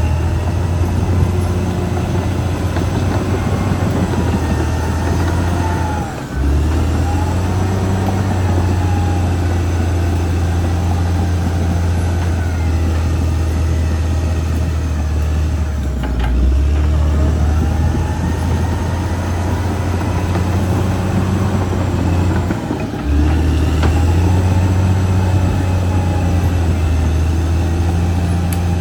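Caterpillar D6R XL bulldozer's diesel engine running steadily under load. It drops briefly about six, sixteen and twenty-three seconds in.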